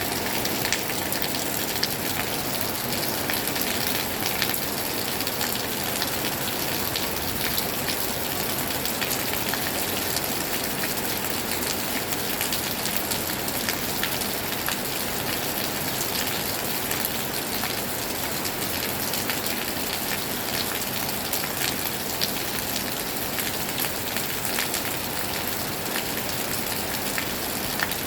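Heavy rain falling steadily, a dense even hiss with many small drop impacts on surfaces.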